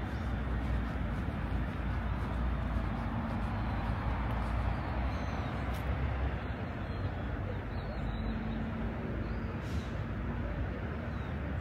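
Steady rumble of city traffic, with a faint low engine hum rising out of it twice.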